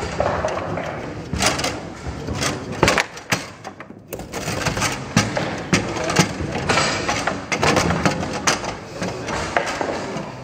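Table-football game in play: the ball clacking against the figures and the table walls, and rods knocking as they are spun and shuttled. It comes as irregular sharp knocks, with a brief lull about four seconds in.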